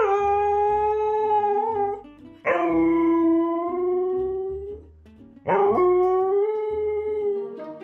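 Siberian husky howling: three long howls, each sweeping quickly up in pitch and then held steady for about two seconds, the last starting about five and a half seconds in.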